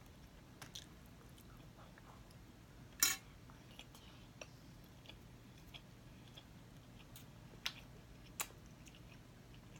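Quiet eating at the table: soft chewing with a few sharp clicks of a metal fork on a ceramic plate, the loudest about three seconds in.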